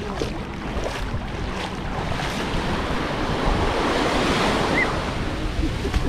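Surf washing onto a sandy beach, with wind buffeting the microphone in a constant low rumble. A wave swells up and breaks about halfway through.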